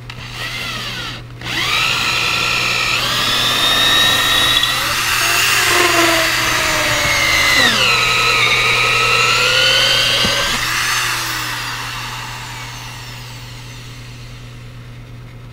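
Electric drill boring a hole down through a doubled 2x4 wooden top plate. After a brief start and stop, the motor runs hard, its pitch sagging and shifting as the bit bites. It winds down and fades a few seconds before the end.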